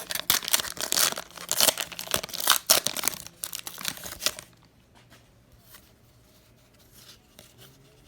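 Plastic trading-card pack wrapper being torn open and crinkled, a dense run of sharp crackles lasting about four seconds. It then stops and only a few faint clicks of cards being handled are left.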